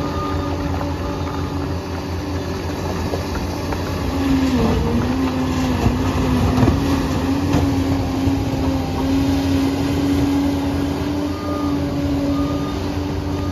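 Liebherr 746 crawler dozer at work: a steady diesel engine rumble with track clatter and a steady whine. About four seconds in it gets louder and the whine grows stronger, as the machine takes on more load.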